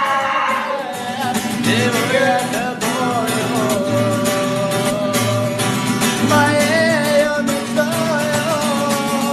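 Music: a voice singing long, wavering held notes over strummed guitar and a steady pulsing bass beat.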